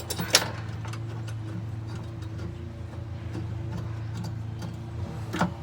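Light metallic clicks as a bolt with lock washer and washer is screwed into a pickup's step-bar mounting bracket, with one sharper click shortly after the start and another near the end.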